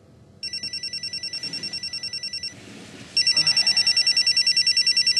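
Phone ringing with an electronic trilling ring, two rings of about two seconds each, the second louder.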